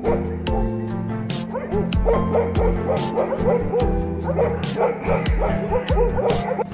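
Puppies yipping and whimpering in many short rising-and-falling calls, over background music with a steady beat.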